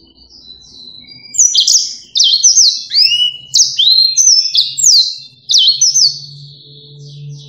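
Yellow-fronted canary (Mozambique singing finch) singing a fast, varied run of sweet whistled notes, many of them sliding sharply down or up. The song starts softly, turns loud about a second and a half in, and trails off into quieter warbling near the end.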